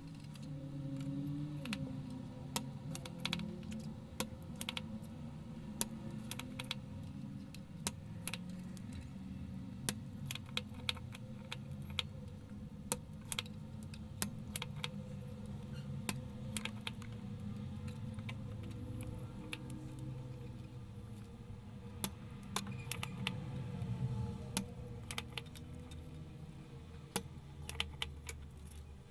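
Irregular sharp clicks and light metallic clatter of tools and parts being handled during electronics repair work, over a low steady hum.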